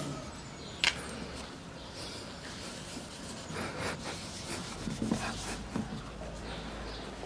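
Flannel cloth scrubbing toothpaste back and forth over car paint to polish out light scratches, a soft rubbing of fabric on the panel. A sharp click sounds about a second in.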